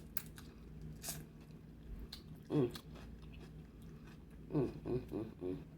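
Close-up chewing and crunching of a cucumber slice in sauce, with a couple of sharp crunches early on and a few short hummed voice sounds between bites.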